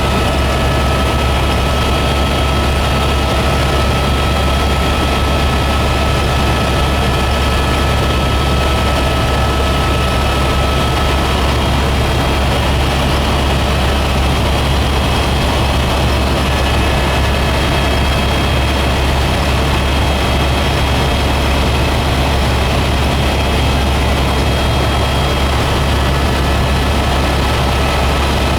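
Helicopter in flight: a loud, steady low drone of rotor and engine, with faint steady high-pitched whines above it.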